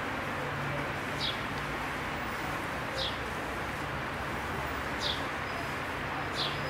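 A bird giving short, high, falling chirps, four times at intervals of about one and a half to two seconds, over a steady background hiss with a low hum.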